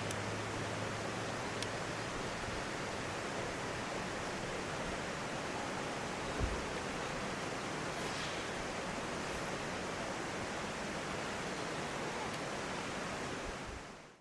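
Mountain stream water rushing steadily, fading out near the end. A soft low thump about six and a half seconds in.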